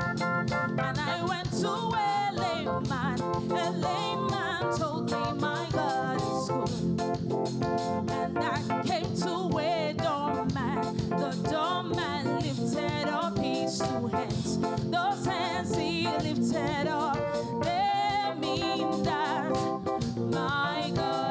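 Live gospel praise music: singing over a band with a steady, driving beat.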